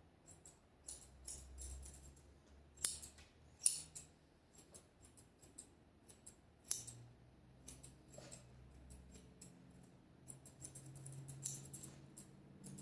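Dog-grooming scissors snipping through a schnauzer puppy's coat: scattered short, sharp snips, with a quicker run of them near the end.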